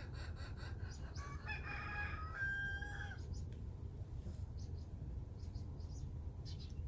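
A rooster crowing: one long call whose last note is held level before it stops about three seconds in, over a steady low rumble.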